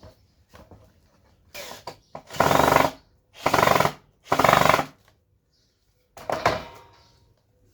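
A handheld power tool run in short bursts: three loud bursts of about half a second each in the middle, with a weaker burst before them and another, fading, near the end.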